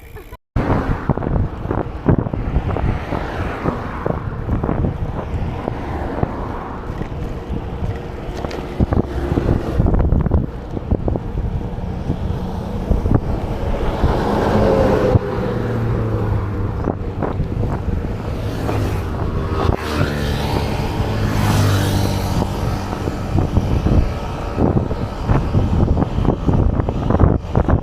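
Wind buffeting an action camera's microphone while riding a gravel bike, with frequent knocks and rattles from the bike over a rough surface. A low hum comes in about halfway through.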